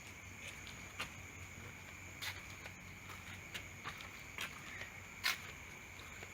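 Night insects, crickets, chirring in a steady high drone, with scattered short clicks and knocks over it, the loudest about five seconds in.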